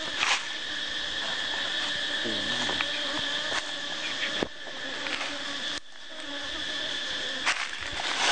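A steady, high insect drone, with a few short knocks and handling thuds over it.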